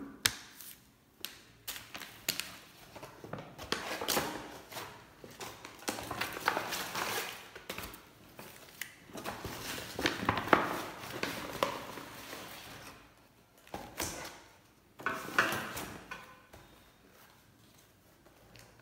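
Paper takeaway bags rustling and crinkling in repeated bursts as they are handled and unpacked, with a few light knocks.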